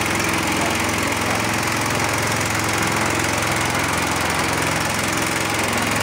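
Small boat engine running steadily, pushing a passenger raft built from drums along the river.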